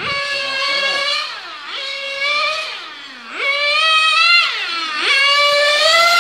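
Radio-controlled on-road racing car running laps, its high-pitched motor note holding steady on the straights, then dropping in a falling glide as the throttle is lifted for a corner and climbing sharply again, three times.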